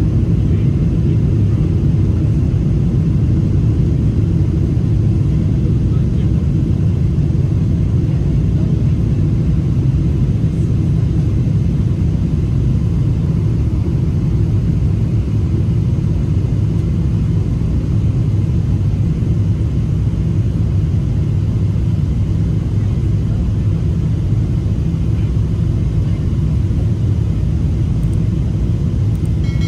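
Steady low rumble of a Boeing 787 Dreamliner in flight, heard from inside the aircraft: airflow and engine noise holding an even level throughout. A brief faint tone sounds near the end.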